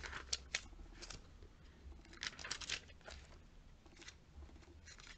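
Glossy paper pages of a cosmetics catalog being turned and handled by hand: a string of short, faint paper rustles and flicks, with a steady low hum underneath.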